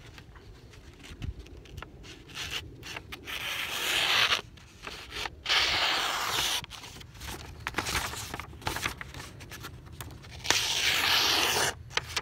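A 52100 carbon-steel bushcraft knife slicing through a hand-held sheet of printed paper to test its edge: three long cuts, the first about three to four seconds in, the second around six seconds and the third near the end, with paper rustling and crackling between them.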